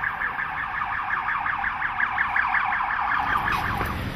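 Police siren in a fast yelp, a rapid repeated up-and-down sweep, dying away near the end.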